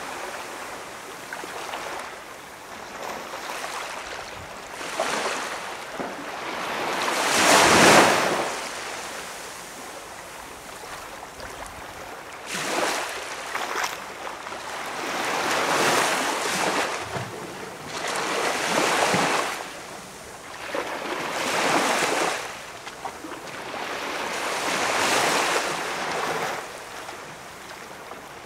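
Small waves washing onto a beach shore, each one swelling to a rushing hiss and then fading, one every few seconds, with the strongest one about eight seconds in.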